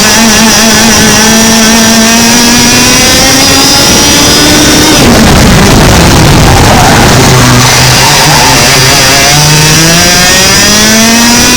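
100cc two-stroke kart engine heard onboard, its pitch climbing steadily as it pulls. It drops sharply when the driver lifts off about five seconds in, stays low for a few seconds, then climbs again through the last few seconds.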